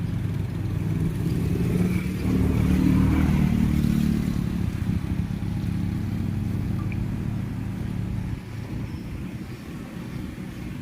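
A motor vehicle's engine running, growing louder about two seconds in and easing off near the end.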